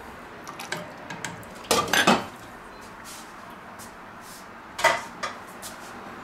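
Metal ladle clinking against a stainless-steel pot, with the pot's glass lid set down on it in a loud clatter about two seconds in. A few light clicks come before it, and a second sharp clink follows near five seconds.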